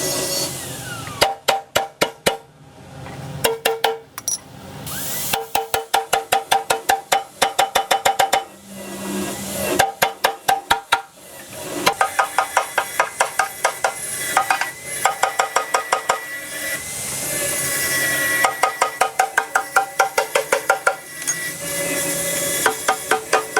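Hammer striking metal in quick runs of about five blows a second, each blow ringing, with short pauses between runs: panel-beating on an excavator cabin's steel body.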